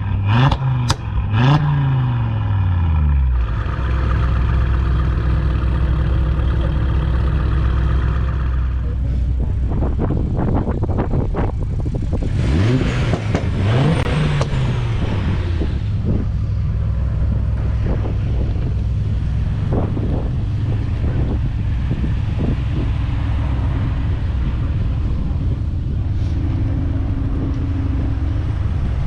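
Car engines revved in short rises and falls of pitch, a few times at the start and again about halfway through, over a steady low engine rumble.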